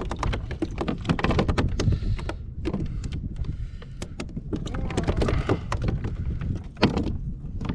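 A freshly caught mackerel being unhooked and handled aboard a plastic fishing kayak: an irregular scatter of sharp taps, knocks and rattles from the fish, tackle and hull, over a steady low rumble.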